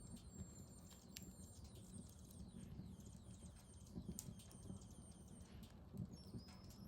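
Wood fire crackling in a fireplace: faint, irregular pops and snaps over a low rumble of the burning.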